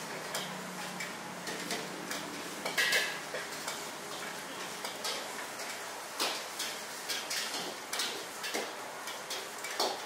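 Metal spatula scraping and clacking irregularly against a steel wok as noodles are stir-fried, the loudest knock about three seconds in. A steady hiss of the high gas flame and frying runs underneath.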